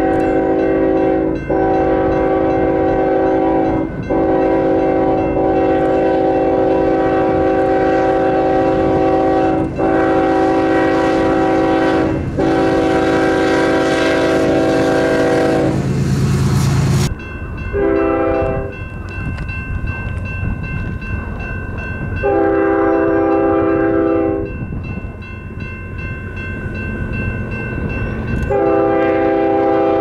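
BNSF diesel freight locomotive's multi-chime air horn blowing long, near-continuous blasts at a grade crossing. About halfway through it breaks off as the locomotive passes with a loud rumble, then sounds a short blast and two long blasts. The crossing bell rings steadily underneath.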